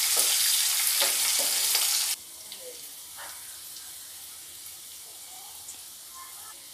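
Onion, capsicum and chillies frying in hot oil in a non-stick kadai, sizzling steadily, with a wooden spatula scraping through them for the first couple of seconds. About two seconds in, the sizzle drops suddenly to a much quieter frying that carries on.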